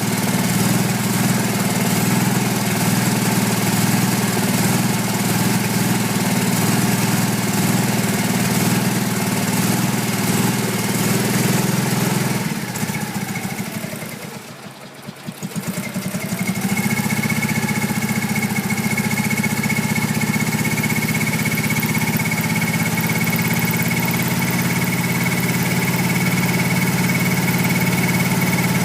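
Wood gas generator engine running steadily. About twelve seconds in it slows and nearly dies, with its note dropping and single firing strokes showing. It then picks back up to a steady run, now with a thin high whine.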